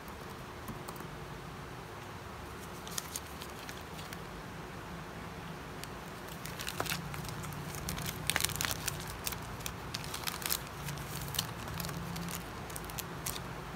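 Crinkling with scattered light clicks, like something being handled, thickest in the middle, over a low steady hum.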